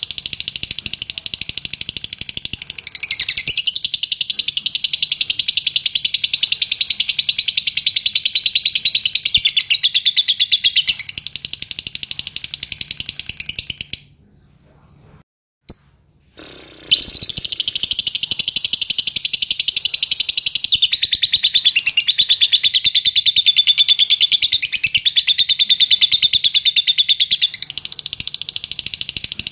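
Fischer's lovebird chattering in a long, rapid, unbroken trill of high notes, the extended song that lovebird keepers call ngekek. It breaks off for about three seconds halfway through, then starts up again just as fast.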